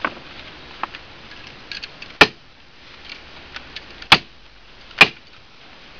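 A staple hammer striking three times, each a sharp, loud smack, about two, four and five seconds in, driving staples through the trough liner into the wooden trough end. Faint small clicks and rustles of the liner being handled in between.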